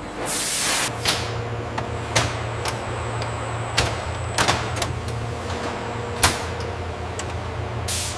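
Factory machinery running with a steady low hum, with sharp clicks and knocks scattered through it. A short whoosh comes just before the hum starts, and another comes near the end.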